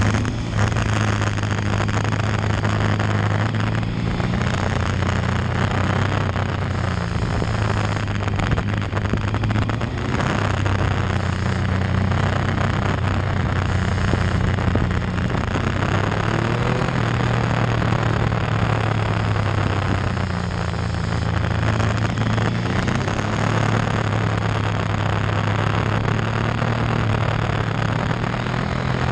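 Motorcycle engine running while riding, its note rising and falling with the throttle, with a dip and pickup about twenty seconds in. Steady wind and road noise on the microphone runs underneath.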